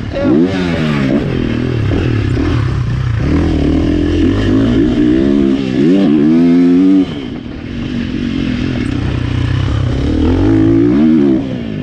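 KTM motocross bike's engine heard from the rider's helmet camera, revving up and down repeatedly as it is ridden through supercross jumps. The throttle is chopped sharply about seven seconds in, then the engine picks up again.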